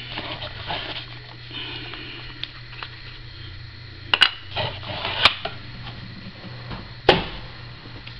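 Trading cards and card packs being handled on a table: light rustling with a few sharp clicks and taps, the loudest near the end, over a steady low hum.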